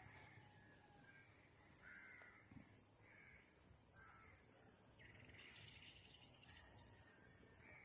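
Faint outdoor ambience: birds calling in short calls about once a second. A high insect buzz joins about five seconds in and fades out shortly before the end.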